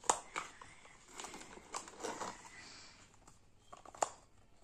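Irregular clicks and knocks of hard plastic as a small plastic crawling baby-doll toy and its pink plastic cap are handled, with the sharpest knocks just after the start and about four seconds in.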